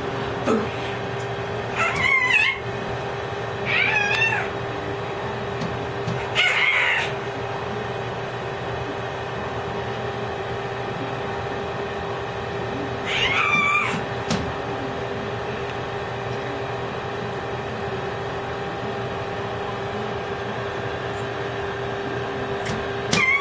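A baby squealing four times, short high-pitched cries whose pitch rises and falls.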